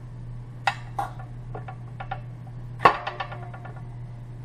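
Glass canning jar and its metal screw lid being handled and opened: a scatter of sharp clicks and taps, the loudest about three seconds in with a quick run of smaller ones after it, over a low steady hum.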